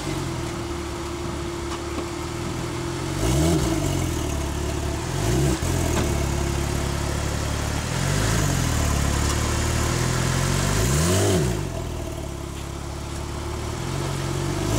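Porsche Carrera 4S flat-six engine idling, blipped up and back down in short revs every few seconds.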